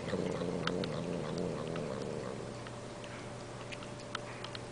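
Elderly domestic cat making a low, wavering "nmm nmm" hum as it eats soft food off a spoon, with sharp wet clicks of its mouth smacking. The humming is strongest in the first couple of seconds, then grows fainter.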